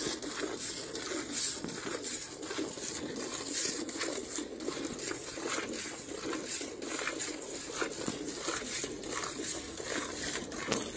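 Hand milking a cow into a metal bucket: alternating squirts of milk hissing into the milk already in the pail in a quick, steady rhythm, with a light clinking of bangles on the milker's wrists.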